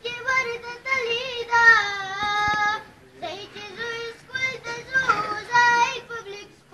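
A boy's solo voice singing a slow, melodic piece in phrases of long held notes that waver, with short breaks about three seconds in and near the end.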